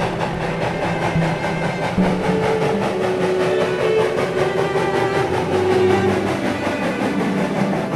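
Steam locomotive, a 2-8-0 Consolidation, running past with a rapid, even beat. Held cello notes that change pitch every second or two sound over it.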